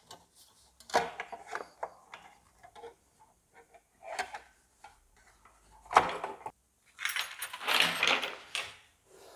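Handling noises as the cover over a 3D printer's control board is put back on: scattered clicks and knocks, a sharp knock about six seconds in, then a couple of seconds of noisy scraping and rattling.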